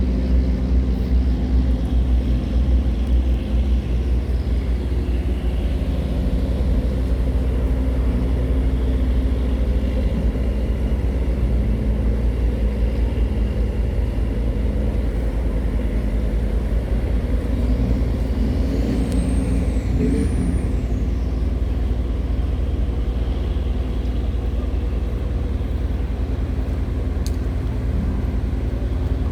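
Cummins diesel engine of a river tugboat running steadily under load with a deep, even rumble.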